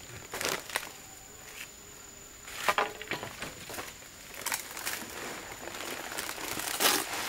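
Irregular crinkling and crunching, a handling or treading sound on dry material, with the loudest crunches about two and a half seconds in and near the end.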